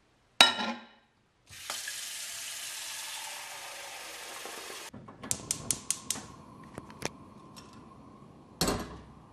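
A metal clank, then a kitchen tap runs into a small stainless-steel saucepan for about three seconds and stops. A gas hob's spark igniter clicks rapidly several times as the burner is lit, with a few more clicks after. Near the end there is one heavier clunk, the saucepan set down on the hob's grate.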